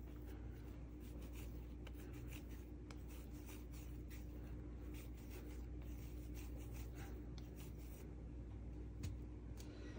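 Hands rolling a ball of soft bread dough between the palms: faint rubbing and light pats, with a light knock about nine seconds in, over a steady low hum.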